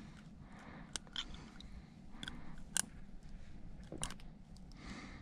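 A few sharp small clicks and snips, irregularly spaced, from tools and hooks as a lure is worked free from a deeply hooked asp's mouth.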